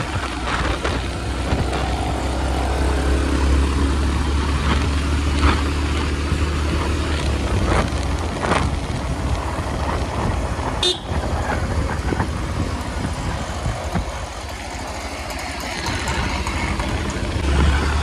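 Motorcycle ride through town traffic: steady engine, wind and road noise, with vehicle horns honking.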